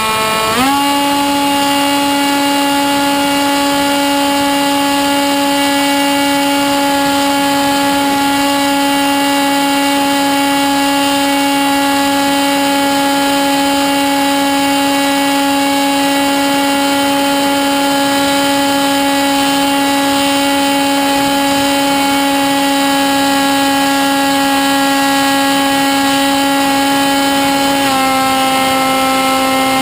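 Sky Surfer RC plane's electric pusher motor and propeller whining steadily in flight, heard from the onboard camera. The pitch jumps up about half a second in as the throttle is opened, then holds, dropping slightly near the end.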